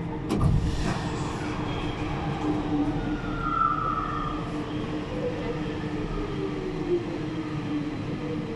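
Siemens VAL 208 rubber-tyred metro running through a tunnel, its traction motors holding a steady whine over the rolling noise, with a sharp knock about half a second in. An oncoming VAL train passes on the other track, its tones gliding downward in the second half.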